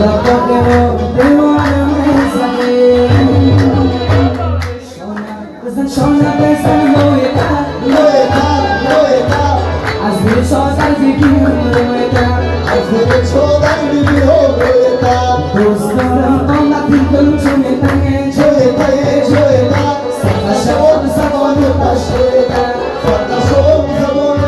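A Persian-language song: a sung melody over a steady beat with heavy bass, dipping briefly about five seconds in.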